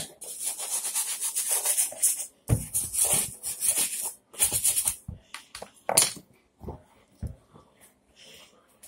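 Brush scrubbing a sneaker with soapy suds in fast, rhythmic back-and-forth strokes, with a few heavier knocks in between. After about five seconds the scrubbing breaks off into scattered light scrapes.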